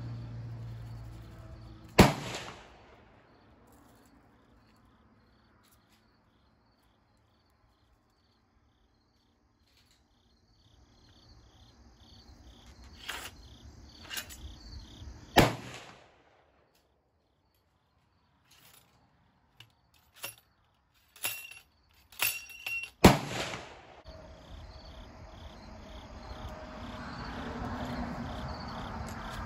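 A ramrod seating a Spitzkugel conical bullet down the muzzle of an M1849 Kammerbuchse muzzle-loading rifle, heard as several sharp knocks, with another loud knock early on and a cluster of knocks near the end. Crickets chirp steadily throughout.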